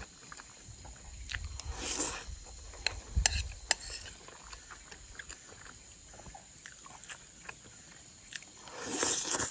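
Close-up eating sounds: chewing a mouthful of rice, with a few sharp clicks of a metal spoon against a ceramic bowl about three to four seconds in. Two short breathy rushes come about two seconds in and again near the end.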